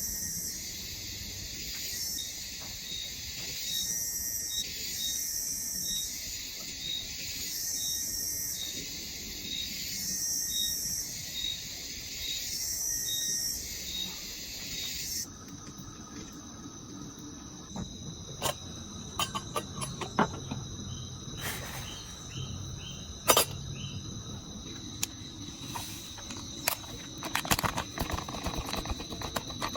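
Tropical forest insects: a loud high-pitched chorus pulsing about once a second, which cuts off about halfway, over a steady high trill that carries on. In the second half, scattered sharp clicks and knocks, one louder than the rest.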